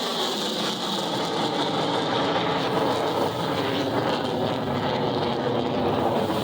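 Jet noise from an F-35 Lightning II's single turbofan engine during a flyby: a steady, loud rushing sound with faint sliding tones in it and no sharp changes.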